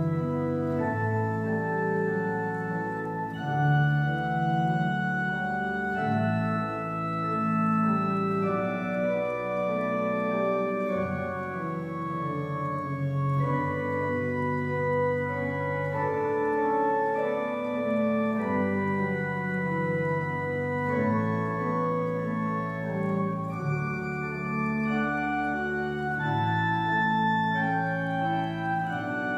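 Organ played on manuals and pedals: slow, sustained chords over a deep pedal bass line, the bass note changing every few seconds.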